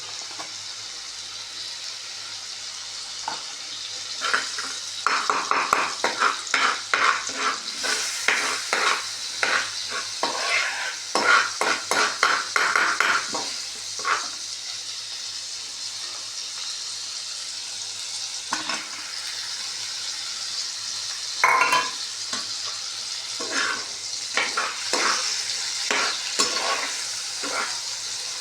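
Drumstick and potato pieces frying with spices in oil, sizzling steadily, while a utensil stirs them. Quick runs of scraping strokes against the pan come from about four to fourteen seconds in and again near the end.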